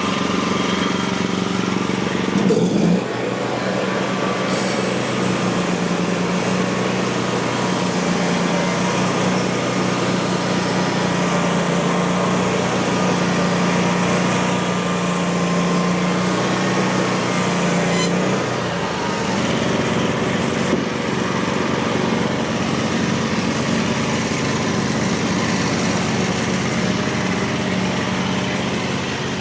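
Small engine on a portable sawmill running steadily. Its note shifts about 3 seconds in and again about 18 seconds in, and a higher hiss rides over it between those two points.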